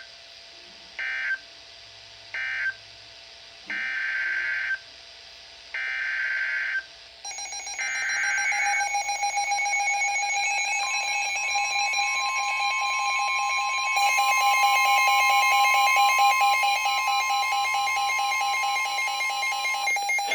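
Emergency alert data signals between weather radio warnings: three short warbling bursts about a second apart (the end-of-message code), then three longer one-second bursts (the header of the next warning). From about seven seconds in, buzzing electronic tones join, and from about eleven seconds in a steady high alert tone holds for about nine seconds before cutting off.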